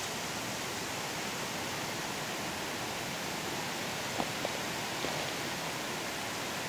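Steady, even hiss with a few faint clicks between four and five seconds in.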